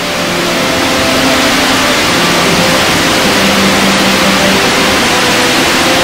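Stuiben Falls, a waterfall with a 159 m drop, rushing loudly and steadily as white water pours down next to the platform.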